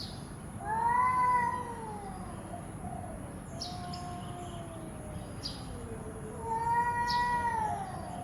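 A cat meowing: two long, drawn-out meows that fall in pitch, one about a second in and one near the end, with quieter meows between them.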